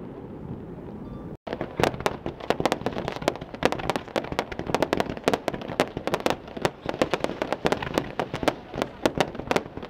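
Fireworks display: a fading rumble, a sudden break about a second and a half in, then a dense crackling of sharp pops and cracks, many per second.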